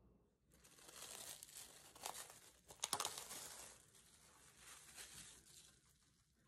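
Plastic cling wrap being peeled off a glass measuring cup, crinkling and crackling from about half a second in, loudest near the middle and dying away near the end.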